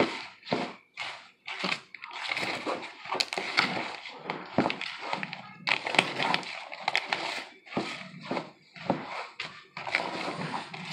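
A utensil stirring a thick, wet corn-and-cheese mixture in a plastic bowl: irregular scraping strokes against the bowl, about one or two a second.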